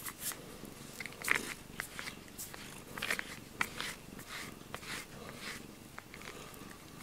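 A soft rubber grooming brush rasping through a cat's fur in short, irregular strokes, with the cat purring softly underneath.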